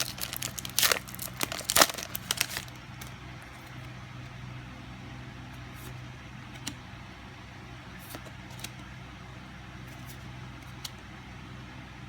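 Foil trading-card booster pack crinkling and tearing open for the first two to three seconds. After that comes a steady low hum with a few faint clicks.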